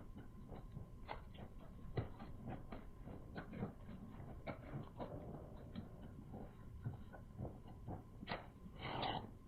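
Close-up eating sounds: chewing and wet mouth smacks from eating boiled sea whelk, with many irregular small clicks. There is a short hissing sound about nine seconds in.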